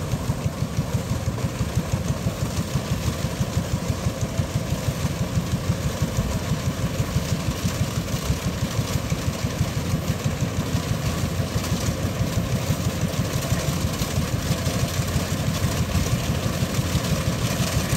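Kubota DC-105X rice combine harvester running while cutting lodged rice: a steady diesel engine and threshing drone with an even pulse about four times a second.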